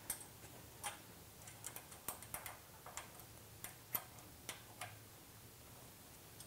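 Faint, irregular metallic clicks of an Allen key working a set screw in a metal corner fitting of a Pilates trapeze canopy frame, about a dozen ticks that stop about five seconds in.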